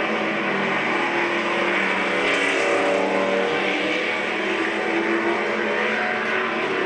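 Engines of a pack of strictly stock race cars running together as they race around the track, several engine notes at different pitches overlapping at a steady level. The sound is played back through a television's speaker.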